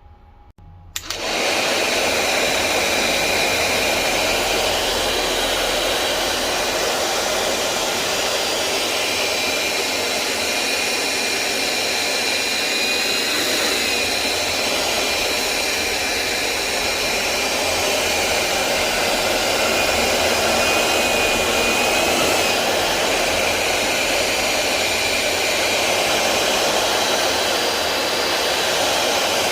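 A small motor-driven blower switches on about a second in and runs steadily: a loud, even rush of air with a faint steady whine on top.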